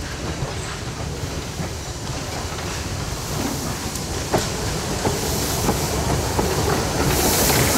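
Steam locomotive and its coaches rolling toward and past at low speed: a low rumble with scattered clicks of wheels over rail joints, growing louder as it nears, and a rush of hiss in the last second.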